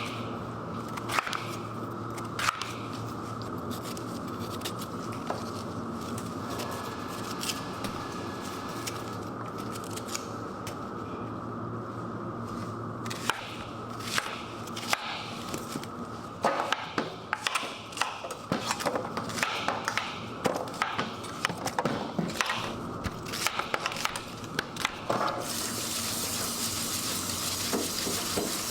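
A meat-processing machine running with a steady hum, with frequent clicks, knocks and scraping, busiest in the second half. Near the end a steady rush of running water starts.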